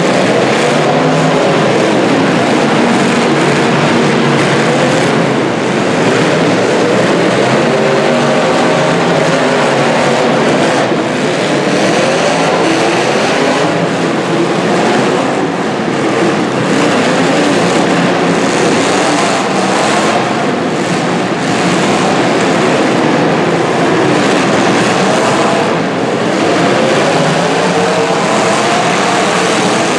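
Several demolition derby cars' engines revving hard and unevenly at once, pitches rising and falling against each other, with a few brief knocks from cars hitting about a third and half of the way in.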